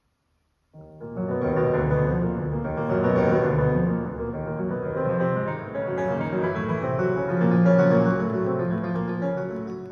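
Bose SoundDock speaker playing piano music from a docked iPod, starting abruptly out of silence about a second in.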